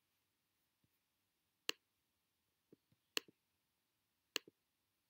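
Computer mouse clicking three times against a near-silent room, each sharp click followed by a fainter release click, while a slider is dragged in a map application.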